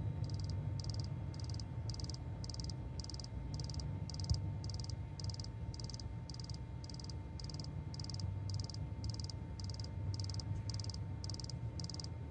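High-pressure fuel pump regulator valve on a VW Tiguan 2.0 TSI clicking faintly and evenly, about twice a second, like an insect, with the ignition on and the engine off. A steady low hum lies beneath it.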